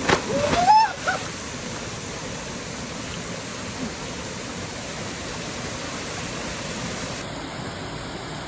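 Waterfall pouring steadily: a constant rush of falling water. In the first second a person gives a short shout that rises in pitch over it.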